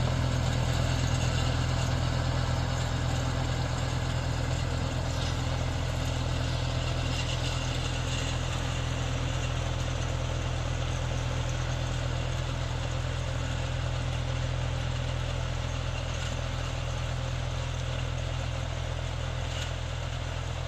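Solis 50 4x4 tractor's diesel engine running steadily as it pulls a Messis UM-180 rotary tiller through the soil. The sound grows slightly quieter as the tractor moves away.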